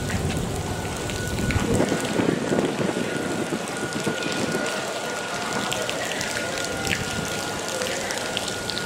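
Steady rain pattering, a dense haze of small drop ticks, with low wind rumble on the microphone that dies down after the first second or two.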